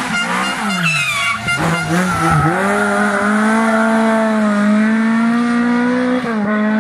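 Rally car engines at high revs: a car passes close, its note falling as it goes by, then an engine pulls hard with its pitch slowly rising, dropping briefly for a gear change near the end.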